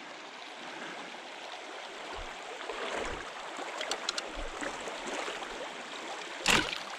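Creek water running steadily over a shallow stream bed, with a few soft low knocks and a sudden louder burst of noise near the end.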